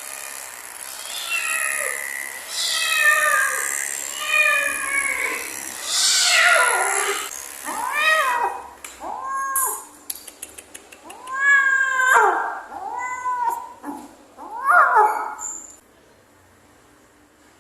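An agitated domestic cat meowing and yowling over and over during grooming, a dozen or so drawn-out calls that stop shortly before the end.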